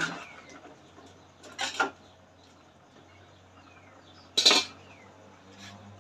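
A cooking utensil knocking against an aluminium cooking pot while stirring on the stove: a couple of short knocks near two seconds in and a sharper one about four and a half seconds in.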